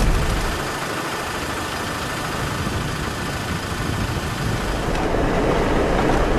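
Land Rover Defender 110 running on a gravel desert track, heard from inside the cab as a steady engine and road rumble with hiss. The rumble drops away for a few seconds in the middle, leaving a quieter steady hiss, then comes back near the end.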